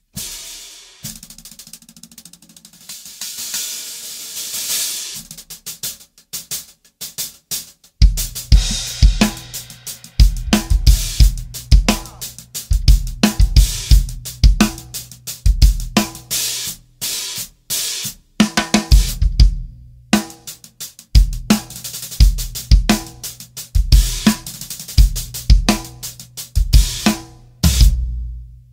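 Drum kit played with a 20-inch hi-hat. For about the first eight seconds the big hi-hat plays alone with a washy sound; then bass drum and snare join in a full groove, which stops abruptly just before the end.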